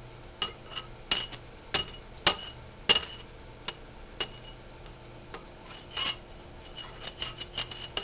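A fork clinking against a ceramic bowl in irregular taps as a baby stabs at avocado cubes, each clink ringing briefly. The loudest clinks come in the first three seconds, with a quicker run of lighter taps near the end.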